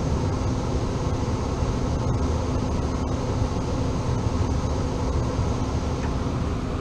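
Air-conditioning unit running: a steady fan rush with a constant low hum underneath.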